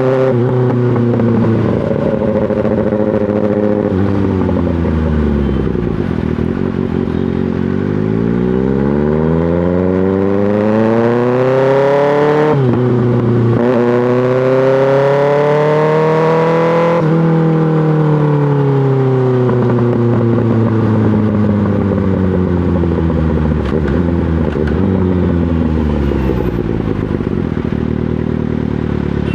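2024 Kawasaki ZX-6R's inline-four engine through an M4 GP slip-on exhaust, riding in traffic. The engine note drops as the bike slows, then climbs hard with a sudden gear change about halfway through. It climbs again, then falls away steadily on a closed throttle and settles low near the end.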